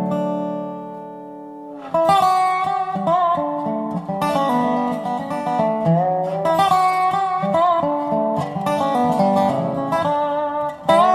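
Instrumental acoustic string-band music. A held chord fades for about two seconds, then the full band comes in with quick plucked notes and a sliding lead line on dobro (resonator guitar).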